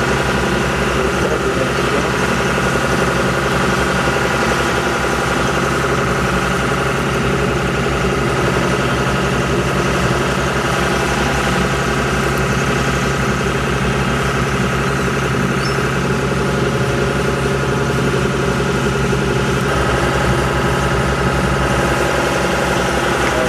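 Shrimp boat's engine running at a steady, unchanging drone.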